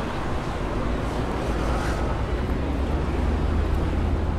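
Steady outdoor city ambience: a continuous low rumble under an even noisy haze.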